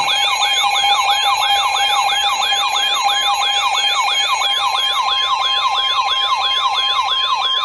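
Weather alert radios sounding their alarms together: a fast siren-like warble rising and falling about four times a second over steady beeping tones, including the NOAA Weather Radio 1050 Hz warning tone that announces a new alert. The warble stops near the end while the steady tone holds.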